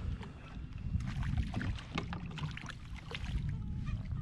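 A small trout splashing at the surface beside a kayak as it is reeled in and swung up out of the water on the line, with many short sharp splashes and clicks. Wind rumbles on the microphone underneath.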